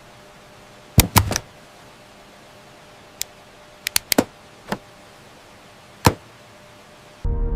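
Irregular sharp clicks and knocks, about nine in all, some in quick pairs and triplets, over a faint steady hiss. Soft music begins near the end.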